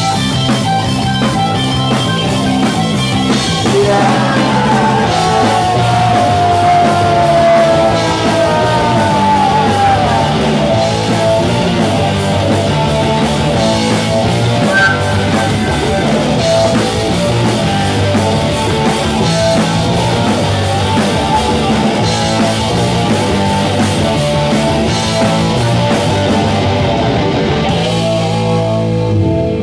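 Live rock band playing an instrumental passage: electric guitar, bass guitar and drum kit, loud. A guitar line slides in pitch about five to ten seconds in, and the cymbals thin out near the end.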